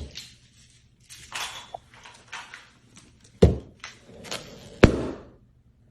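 Rustling and scuffling, then two sharp thuds about a second and a half apart, the second near the end.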